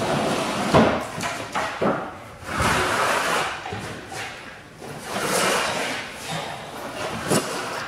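Wooden planks of a motorcycle shipping frame knocking and scraping on a concrete floor: several sharp wooden knocks with longer scraping and shuffling stretches between them as the boards are set down and the motorcycle is pushed onto them.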